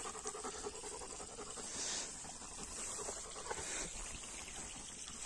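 A Georgian shepherd dog (nagazi) panting faintly and quickly.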